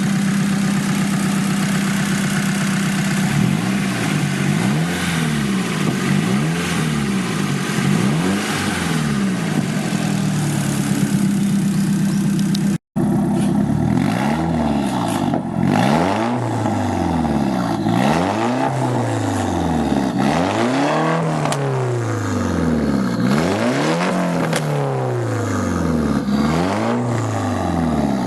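Nissan 180SX's SR20DET turbocharged 2.0-litre four-cylinder engine heard through its exhaust, idling steadily and then revved over and over, each rev rising and falling back every second or two. The sound cuts out for an instant about thirteen seconds in, then the revving carries on.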